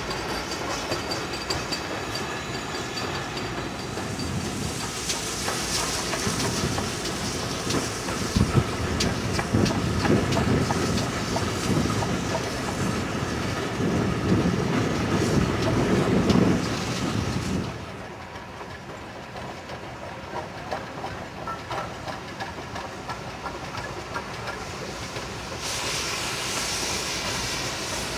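Steam train's carriages rolling across an arch bridge, wheels clattering over the rail joints with a hiss of steam. It swells through the middle and drops away sharply about two-thirds of the way through.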